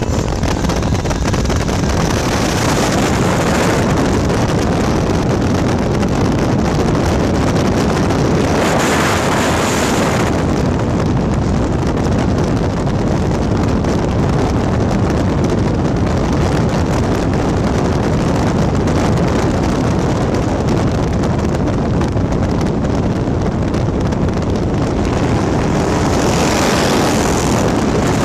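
Wind rushing over the microphone and road noise from a vehicle moving at highway speed. The noise is steady and swells to a brighter rush a few times: about three seconds in, around nine seconds and near the end.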